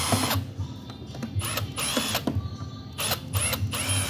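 Cordless drill/driver driving screws for a strobe light into a plastic mower fender. It runs in several short bursts, each with a whine that rises and falls.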